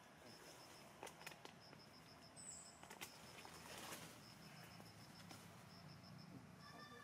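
Faint, high insect chirping in runs of even pulses, about six a second, with a few light clicks and a soft rustle about four seconds in.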